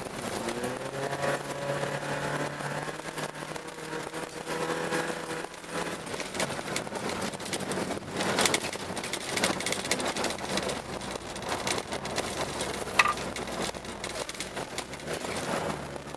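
Car engine heard from inside the cabin while driving on an ice and snow track, its pitch rising and falling for the first several seconds. It then gives way mostly to rough, crackling tyre and road noise, with one sharp click about 13 seconds in.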